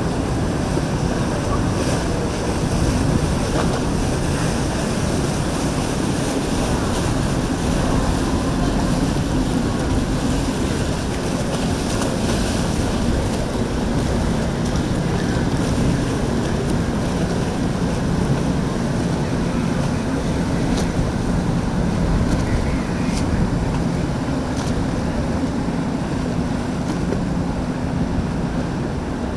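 Motorboat engines running steadily under a rush of water, with wind buffeting the microphone.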